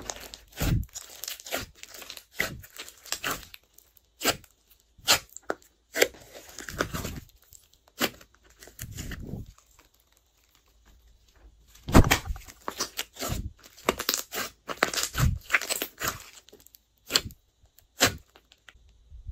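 Hands squeezing and kneading a large mass of mixed slime: irregular sticky squelches and sharp clicking pops, with a quiet pause about ten seconds in while the slime is lifted and stretched.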